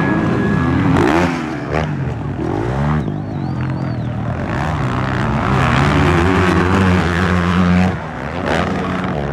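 Several motocross dirt bike engines racing on a dirt track, revving up and down again and again as the riders work the throttle through jumps and turns.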